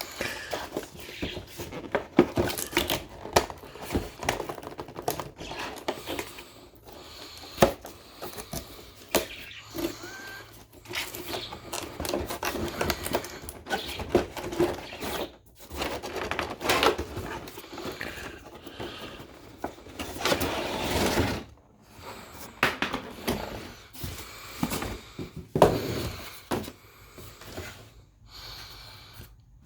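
Toy packaging being handled and opened by hand: irregular scraping, rustling and clicks, with a longer rustle about twenty seconds in.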